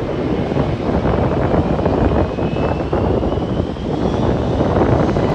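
Airliner jet engines running at the airport: a steady, rumbling noise with a faint whine rising in pitch from about two to four and a half seconds in.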